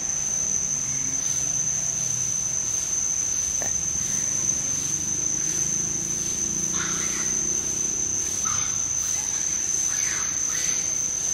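Steady high-pitched drone of insects in tropical forest, a single unbroken tone, with a faint low murmur under it and a few short chirps in the second half.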